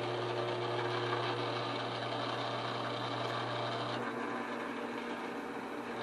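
Belt-driven drill press running at low speed, its 1/4-inch twist bit cutting through stacked quarter-inch steel plates: a steady motor hum under the cutting noise, which shifts slightly about four seconds in.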